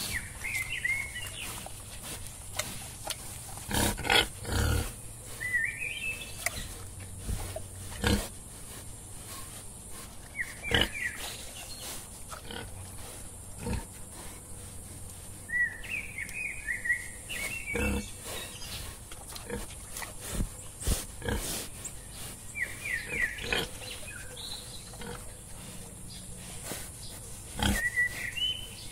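Wild boars grunting and snuffling as they root for food, with irregular short sharp knocks and snorts. Short high chirps recur every few seconds.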